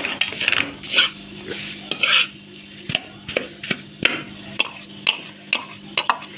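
A metal spoon stirring and scraping through a mixture in a kadhai, with irregular clinks and scrapes against the pan.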